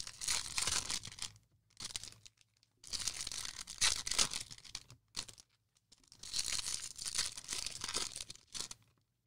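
Foil trading-card pack wrappers crinkling and tearing as packs are opened, in four bursts of a second or two with short quiet gaps between them.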